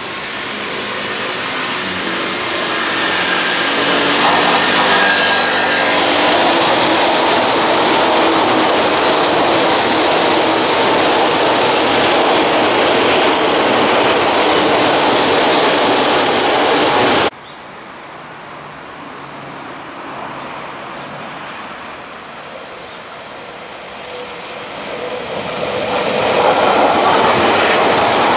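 Electric commuter trains passing close by. A Tokyu 8500 series train approaches and runs past with a steady whine over its wheel noise. About seventeen seconds in the sound cuts abruptly to a quieter level. Then a Tobu 50050 series train approaches, growing louder near the end.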